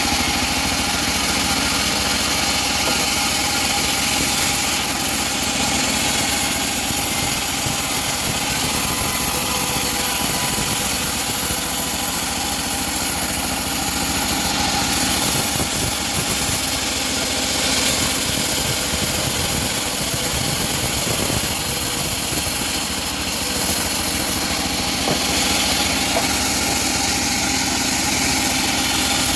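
Homemade engine-driven bandsaw mill running steadily and loudly.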